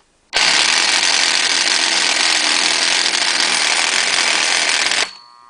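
Motor started up and running with a loud, harsh noise, then stopping abruptly about five seconds in. It is the abnormal noise that the owner suspects comes from a failing bearing, the noise that came before the motor locked.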